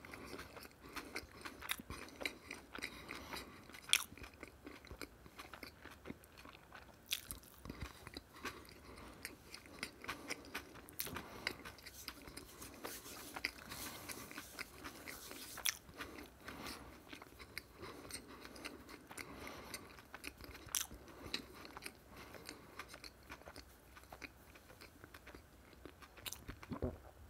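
Close-miked chewing of a mouthful of tortilla wrap, mouth closed, with many irregular sharp clicks and a few louder ones.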